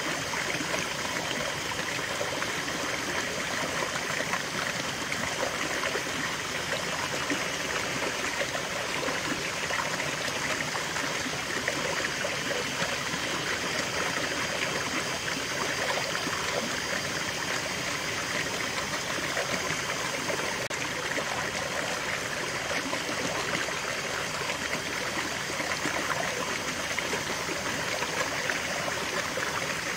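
A small rocky stream running steadily, water spilling over stones in a little cascade into a shallow pool.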